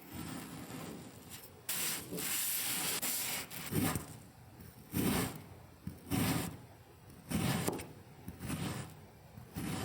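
Kinetic sand being cut and crushed: a longer gritty rubbing stroke about two seconds in, then a run of short ones about a second apart.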